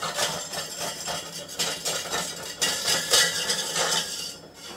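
The threaded steel screw of a small stainless-steel fruit press is being turned by its T-handle to raise the pressing plate from the basket. It makes an uneven metallic scraping with clinks of steel against steel.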